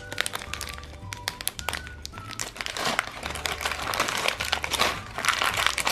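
Plastic candy wrappers crinkling and crackling as hands sort through the packets, densest through the middle and latter part, over background music.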